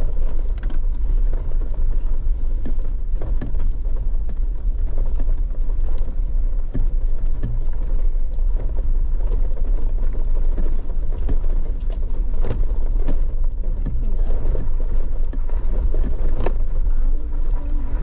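Off-road vehicle driving slowly over a bumpy dirt track: a steady low engine and road rumble, with scattered knocks and rattles as it jolts over the bumps.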